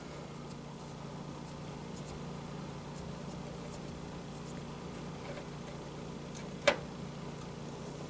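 A hand screwdriver turning a motherboard screw into a case standoff: faint scattered metal ticks, and one sharp click about two-thirds of the way through. A low steady hum runs underneath.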